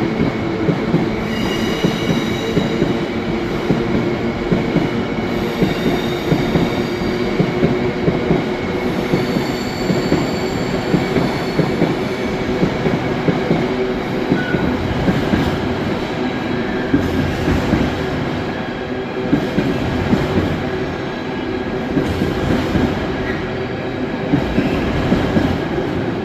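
Intermodal freight train hauled by a Class 66 diesel rolling through at close range, its wagons clattering steadily over the track. High wheel squeal rings out over the first ten seconds or so.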